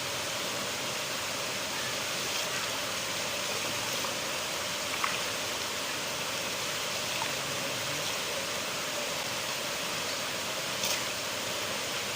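River water flowing steadily, with a few faint brief ticks about five seconds in and near the end.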